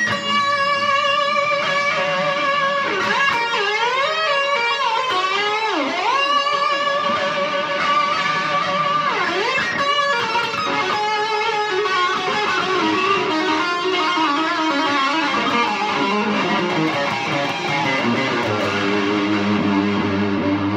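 Kramer Pacer Classic electric guitar played through an amp: held lead notes with vibrato, and pitch dipping down and back up a few times from the Floyd Rose tremolo, moving to lower notes near the end.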